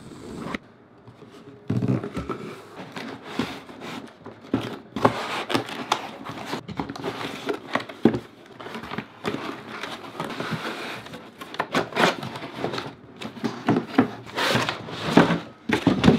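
Cardboard packaging handled during an unboxing: a blade run along the packing tape, then cardboard flaps and inner boxes rustling, scraping and knocking, with plastic wrapping crinkling near the end.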